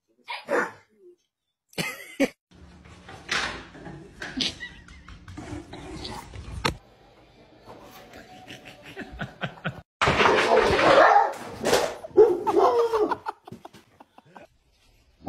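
Dog sounds mixed with people laughing, in several short pieces that start and stop abruptly.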